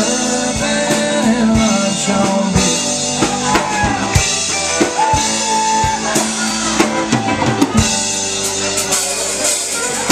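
Live country-rock band playing an instrumental break: electric guitar lines over electric bass and a drum kit keeping a steady beat, with one guitar note held for about a second halfway through.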